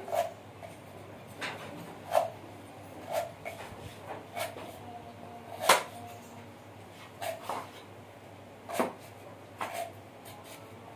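Irregular sharp knocks, about one every second, of a knife blade chopping against a hard surface, each with a short ring.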